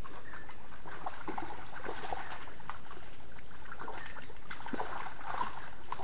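Shallow swamp water sloshing and dripping as a bamboo-style bubu fish trap is handled and lifted out of it, with irregular small splashes and drips.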